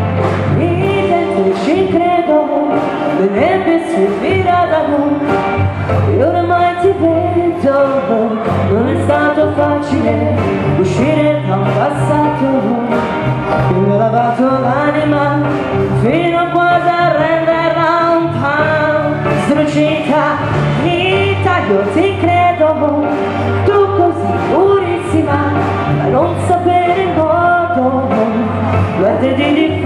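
Live band music: several women singing together over keyboards and a drum kit, with a steady bass line underneath.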